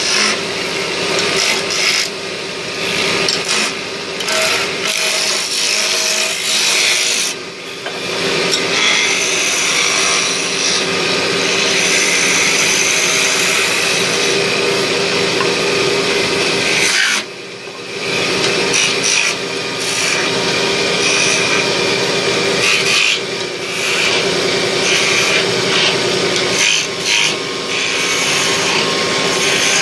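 Wood lathe spinning a wooden spindle while a hand-held turning chisel cuts it: a steady machine hum under a rough, continuous scraping of the cut. The scraping drops away briefly twice, about a quarter of the way in and again a little past halfway.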